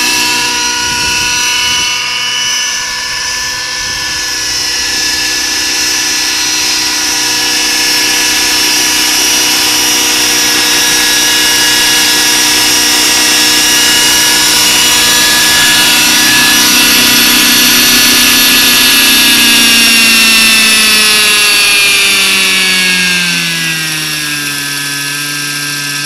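Radio-controlled scale Schweizer 300 model helicopter hovering, its motor and rotor giving a steady whine. About twenty seconds in the pitch falls over a few seconds as it sets down and the rotor slows, then holds at a lower steady note.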